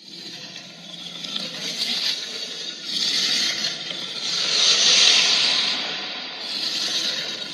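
Harsh, hissing monster-call sound effect for an invented kaiju, starting abruptly and swelling and fading in several waves, loudest about five seconds in.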